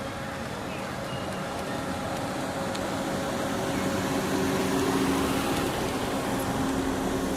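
A motor vehicle's engine running steadily, growing louder from about three seconds in and easing slightly near the end.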